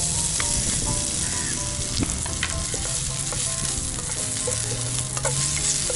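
Food frying in hot oil in a pan: a steady, loud sizzle, with a few sharp clicks scattered through it.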